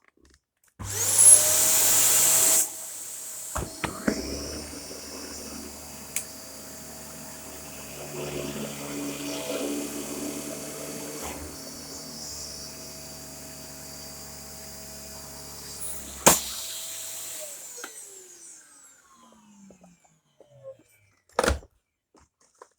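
Dyson upright vacuum cleaner switched on about a second in, with a loud rush of air at first, then its motor running with a steady whine. Near the end a click as it is switched off, and the motor whine falls away as it spins down.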